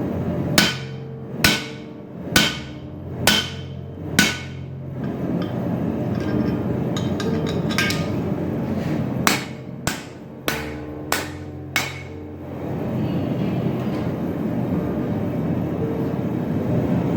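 Hand hammer striking the top die of a spring fuller tool to fuller hot steel: five blows about a second apart, a pause, then five more, each with a short metallic ring, over a steady background rush.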